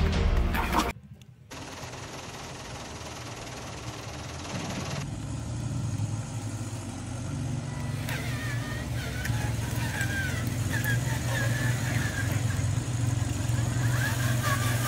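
Music ends about a second in. Then a radio-controlled model dump truck runs with a steady low engine-like drone that gets stronger about five seconds in.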